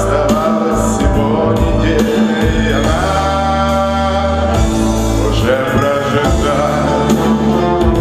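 A man singing a pop ballad into a microphone over instrumental accompaniment, holding one long note about three seconds in.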